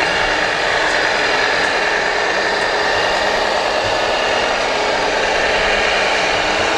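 Radio-controlled scale model semi-truck running steadily, a continuous engine-like drone with a steady whine.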